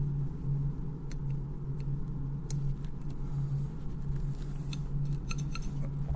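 Steady low background hum with a few faint, sharp clicks of small rifle and mount parts being handled, several close together near the end.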